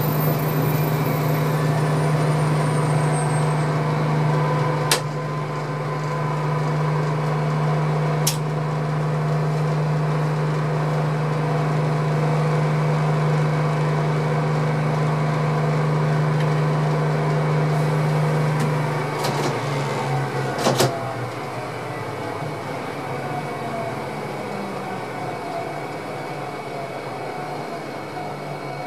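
Steady low hum of a standing locomotive's cab equipment, with single sharp clicks about five and eight seconds in. About twenty seconds in, after a quick cluster of clicks, the hum stops and a whine slowly falls in pitch as something winds down.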